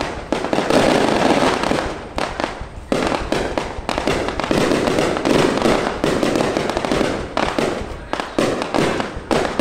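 Aerial fireworks shells bursting overhead in quick succession: a dense run of bangs and crackling, with short lulls about two to three seconds in and again near the end.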